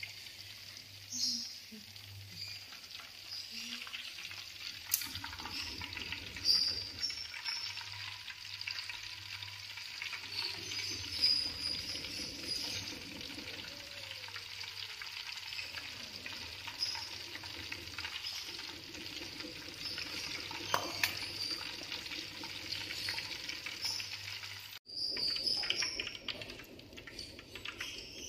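Battered papaya pieces deep-frying in hot oil, a steady sizzle, with a metal skimmer and tongs clinking and scraping against the aluminium pan as the pieces are stirred and lifted out.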